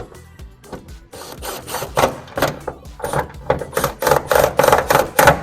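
Rapid mechanical clattering from a tool or machine, getting louder and busier from about three seconds in.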